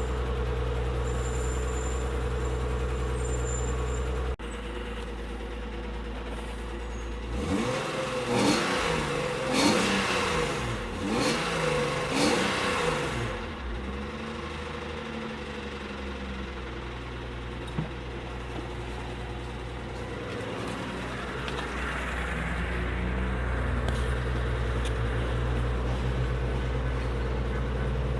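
1995 BMW 325i's 2.5-litre inline-six idling, then revved in several quick throttle blips, each rising and falling in pitch, before settling back to idle. The engine makes a noise that the owner calls a very bad sound, cause unknown.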